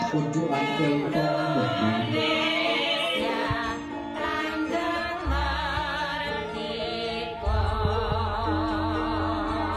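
Music with a voice singing long, wavering notes over a microphone and sound system; a deep bass comes in strongly about seven and a half seconds in.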